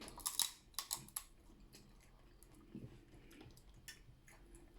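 Faint clicks and crunches of cooked crab shell being cracked and picked apart, several close together in the first second, then a few light ticks.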